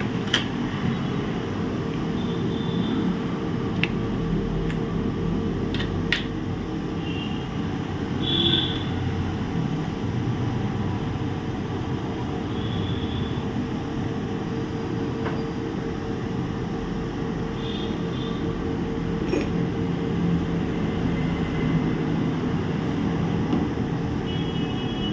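Steady electric fan hum with a faint steady tone, and a few light clicks of small tools being handled.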